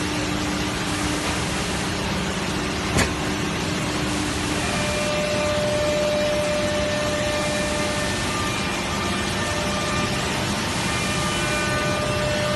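Profile sanding machine running steadily as its conveyor feeds MDF door panels under the sanding strips, giving a dense, even machine noise with a held hum whose pitch shifts about five seconds in. A single sharp knock about three seconds in.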